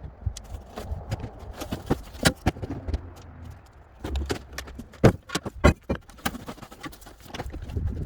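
Rotten plywood being pulled up by hand from a pickup bed and thrown aside: irregular wooden knocks, cracks and clattering, with a few louder thuds about five and a half seconds in.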